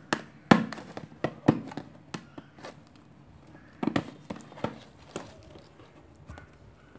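Irregular sharp knocks and taps of hands handling a cardboard toy box, several in quick succession at the start and a cluster again around the middle.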